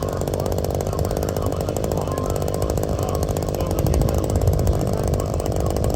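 Diesel engine of the heavy machine carrying the mulcher running steadily with a dense rattling beat, swelling slightly about four seconds in.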